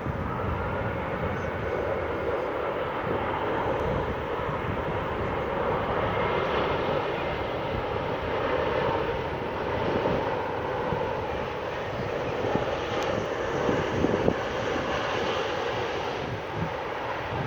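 Emirates Airbus A380's jet engines running at high power on the landing rollout, with the two inboard thrust reversers deployed: a loud, steady roar.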